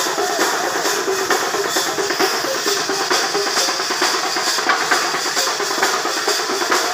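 Loud, fast drumming from a festival percussion group: a dense, unbroken run of strokes with a bright metallic shimmer over it.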